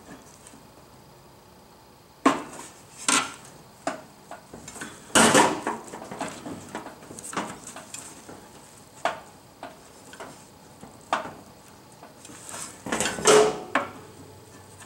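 Irregular clinks, knocks and rustles of gloved hands handling metal and plastic parts inside a kerosene bullet heater's sheet-metal housing. There is a longer clatter about five seconds in and a cluster of knocks near the end.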